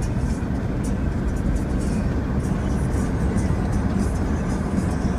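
Steady road and engine noise heard inside a moving car: an even, low rumble.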